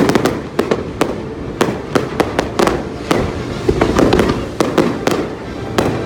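Fireworks going off in a rapid, irregular series of sharp bangs and cracks, more than a dozen in six seconds.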